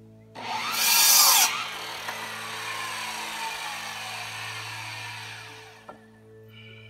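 Electric miter saw started and cut through a wooden board for about a second, then the blade spinning down with a slowly falling whine that fades over several seconds. A short knock follows near the end.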